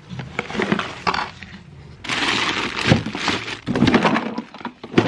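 Hands rummaging through a container of small metal objects: irregular clattering and scraping with several sharp knocks.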